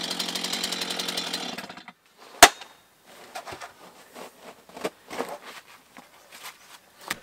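Stihl MS 251 two-stroke chainsaw running under load through a log, cutting out about two seconds in. Then a single sharp knock, followed by scattered small knocks and rustles as cut wood is handled.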